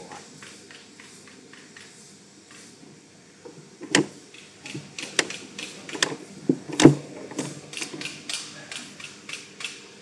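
Desk-type wire cold welding machine being worked by hand: sharp metallic clicks and knocks as the wire is clamped in its dies and pressed. Several clicks start about four seconds in, the loudest near seven seconds, followed by smaller clicks.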